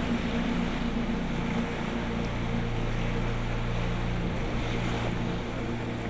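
Rushing white water of shallow river rapids churning around a wooden boat, with steady low tones underneath.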